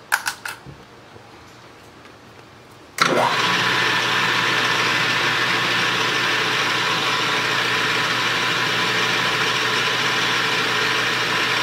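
A metal lathe switched on about three seconds in, spinning up quickly and then running at a steady, loud pitch. A few light clicks come near the start.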